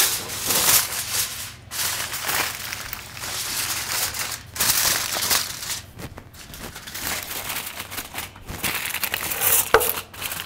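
Aluminium foil crinkling and crumpling as it is pulled over a glass baking dish and pressed and folded down around the edges, in rustling spells with brief pauses between them.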